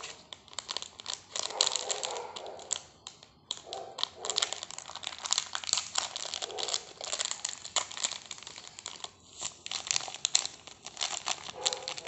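Foil-plastic instant-coffee sachet (Nescafé Creamy White) crinkling as it is handled and shaken, with irregular crackles throughout, then being torn open near the end.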